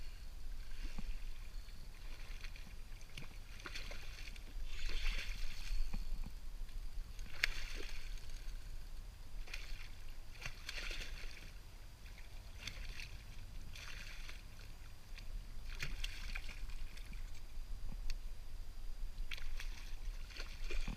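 Hooked redfish thrashing at the surface beside the boat, with short bursts of splashing every second or two over a steady low rumble.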